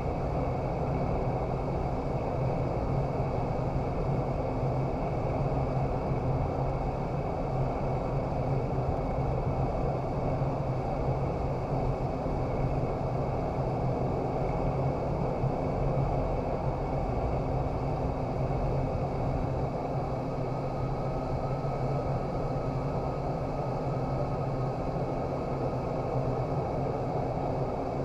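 Airflow of an indoor vertical wind tunnel running at flying speed: a steady rush of air with a low hum underneath. A faint high tone joins after about twenty seconds.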